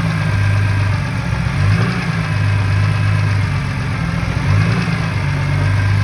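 BMW M3's S54 3.2-litre straight-six idling steadily, its idle rising briefly twice, about two and four and a half seconds in.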